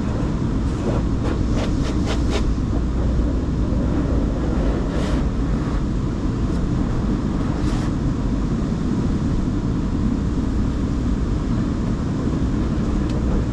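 Steady low rumble of a car heard from inside its cabin while in a tunnel car wash, with a few light clicks and knocks in the first couple of seconds and two more later.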